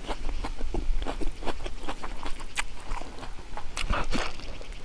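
Close-up wet chewing, smacking and biting of a person eating cooked pig leg meat by mouth, a string of quick irregular clicks.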